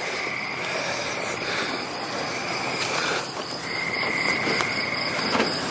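Crickets trilling at night: two steady high-pitched trills at different pitches over a background hiss, the lower one breaking off briefly about three seconds in and then resuming.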